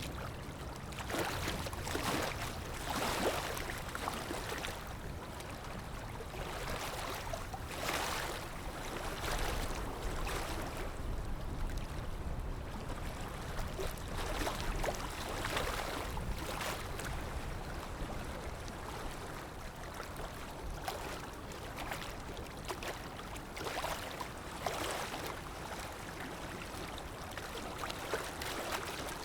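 Sea waves washing in continuously, with swells of surf that rise and fall every few seconds.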